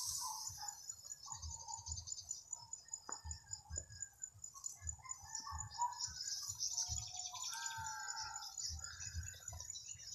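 Birds chirping and calling in many short notes, over a steady, pulsing high insect trill, with soft low thumps throughout.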